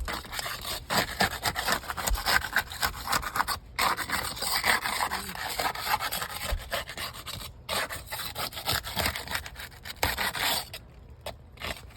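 Rubbing and scraping in quick, uneven strokes, with two short breaks, stopping about eleven seconds in.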